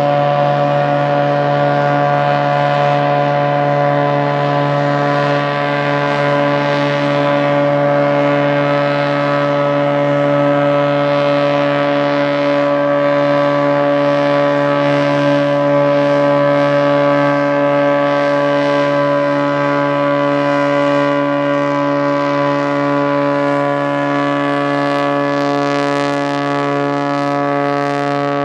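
Cessna floatplane's engine and propeller at full takeoff power, a steady unchanging drone, as the overloaded plane runs across the water on its floats, unable to lift off.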